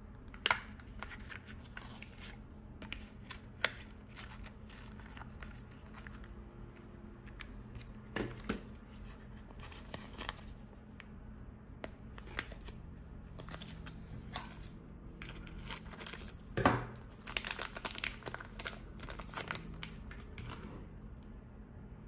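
Thin clear plastic bag crinkling and tearing as it is peeled off a small metal fidget coin. The crackling comes in irregular spurts with a few sharp snaps, the loudest about two-thirds of the way through.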